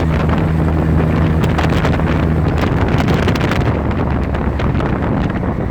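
A tricycle's engine running at road speed under heavy wind buffeting on the microphone; its steady low engine note sinks into the wind rush about two and a half seconds in.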